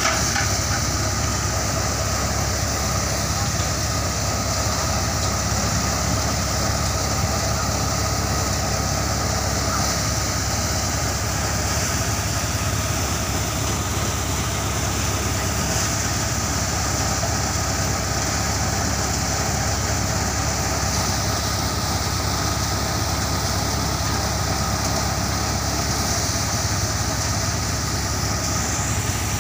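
Motorized drum thresher running steadily at a constant pitch while sheaves of crop are fed into it.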